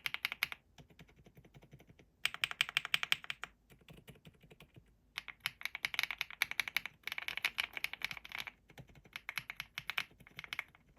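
Rapid keystrokes on a Rainy 75 mechanical keyboard fitted with silent linear switches, typed in about six quick bursts with short pauses between them. The key presses are muted and soft-clicking, as the switches are made to be quiet.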